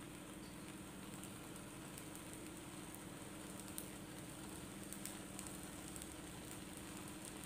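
Faint steady sizzling with light crackles from thin wheat-flour batter cooking in desi ghee on a hot tawa, over a low steady hum.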